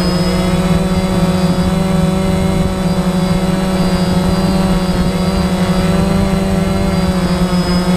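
Quadcopter drone's propellers running with a steady whine close to the microphone, the pitch wavering only slightly as the drone holds its position.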